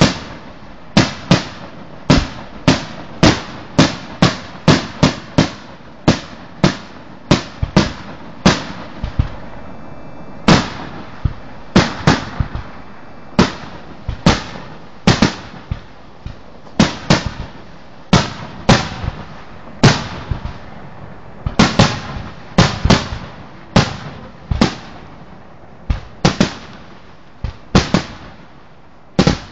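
Aerial fireworks shells bursting in a steady barrage, sharp bangs about one or two a second, each with an echoing tail. A short lull comes about nine seconds in before the bursts resume.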